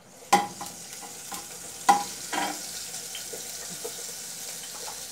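Crushed garlic-and-salt seasoning sizzling in hot fat in a pot as the rice is started, with a sharp clank of a spoon against the pot a moment in and two more around two seconds in, then a steady sizzle.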